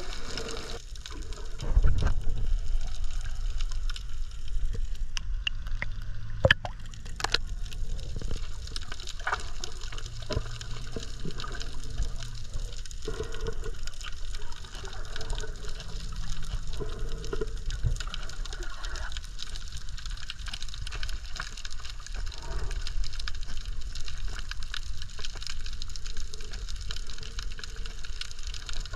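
Water heard underwater through a snorkel-mask GoPro: a steady, muffled low rush with gurgling and a few sharp clicks a few seconds in.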